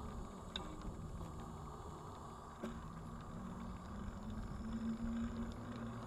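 Steady low rumble of a small vehicle rolling along a paved trail, with a faint hum that comes and goes and a few light ticks.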